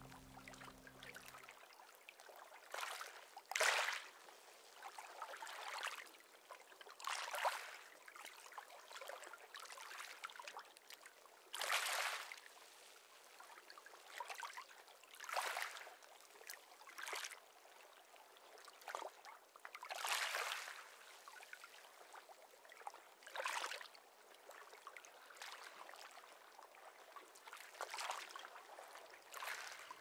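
Gentle waves washing over a pebble beach at the water's edge, a soft hissing wash that swells and ebbs every two to four seconds.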